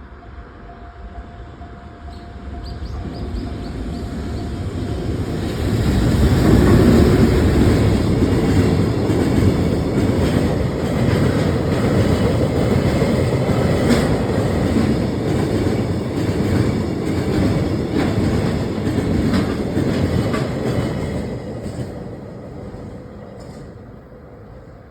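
A train passing the level crossing: a rumble that swells over the first few seconds, runs loud for about fifteen seconds with repeated clicks from the wheels, then fades away near the end.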